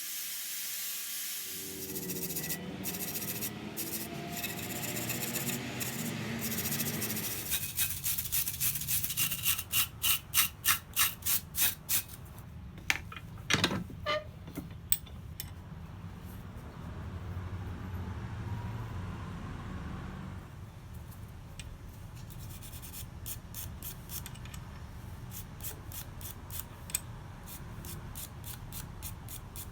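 320-grit sandpaper rubbed back and forth along a forged steel knife blade. It makes a continuous scraping sound, with a run of even strokes, about two a second, near the middle.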